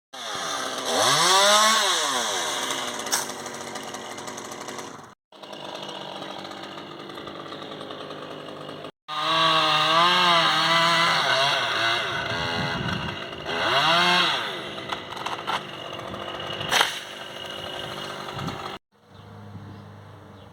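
Stihl two-stroke chainsaw running, its engine pitch climbing and dropping as it is revved up and down. The sound breaks off abruptly three times, cut between separate stretches of sawing.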